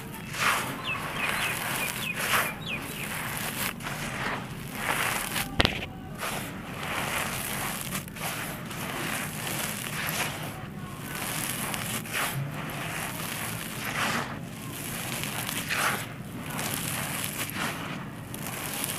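Dry red dirt being crumbled by hand and sifted through the fingers, then swept and scooped across a loose, gritty dirt floor: a continuous gritty crackle and rustle of falling and scraping grains. A single sharp click comes about six seconds in.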